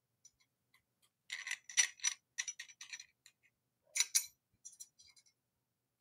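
Light metallic clicks and rattles of aluminium extrusion profiles being fitted together on a blind-joint connector, with a small screwdriver working its screws. A run of ticks starts about a second in and lasts about two seconds, then two shorter groups follow near the end.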